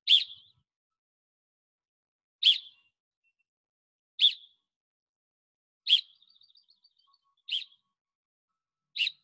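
A coach's whistle blown in six short, sharp blasts, one every one and a half to two and a half seconds. Each blast is the cue for the players to twist their lacrosse sticks in a draw drill.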